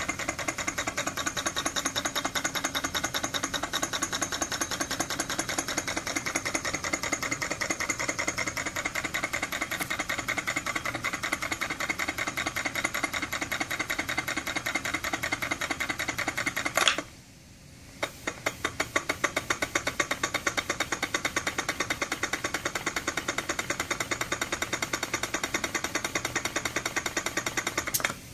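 Small homemade model steam engine running, a rapid, even puffing from the cylinder with the clatter of its rods. About two-thirds of the way through it cuts out with a sharp click, then picks up again after about a second.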